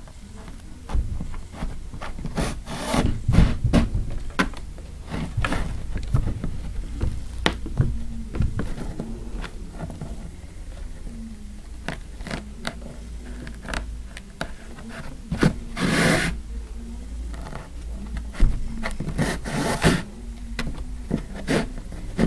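Upholstery twine drawn through hessian and stuffing with a curved needle while stitching the front edge of a seat. The sound is irregular rubbing and scraping, with a few longer, louder pulls.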